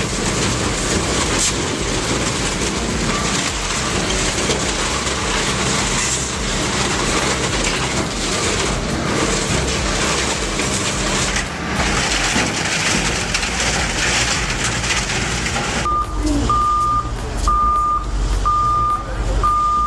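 Heavy machinery running with a loud, steady noise. About four seconds before the end, a reversing alarm starts up, a regular series of short beeps a little under a second apart.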